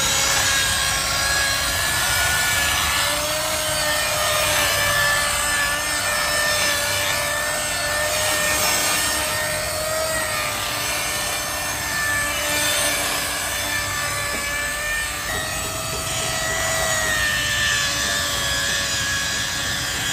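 Electric angle grinder fitted with a wool buffing pad, running steadily while polishing a car's painted body panels: a steady motor whine that wavers slightly in pitch, over the rub of the pad on the paint.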